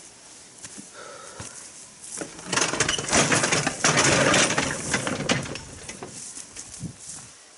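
Hand cart loaded with a heavy slab being pushed over rough, grassy ground, rattling and clattering for about three seconds before stopping.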